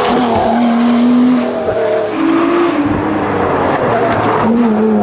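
Race car engine running hard at speed, its note stepping up and down in pitch as it drives through bends.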